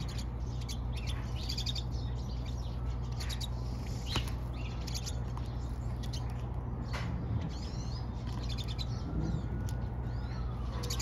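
A flock of pine siskins calling: many quick chirps and twittering notes overlapping through the whole stretch, with a few sliding calls mixed in, over a steady low hum.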